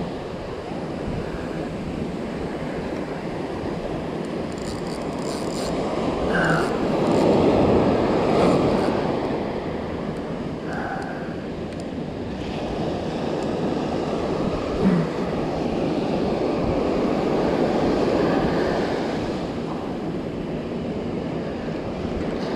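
Sea waves breaking and washing on the shore, swelling loudest twice, about a third of the way in and again past halfway.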